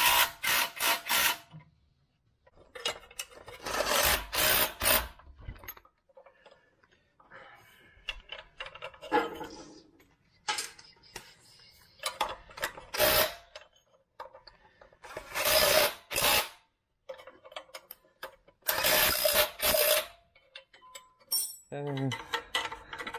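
Cordless drill-driver running in several short trigger bursts of a second or two, with pauses between, driving bolts on the tractor's muffler and engine mount.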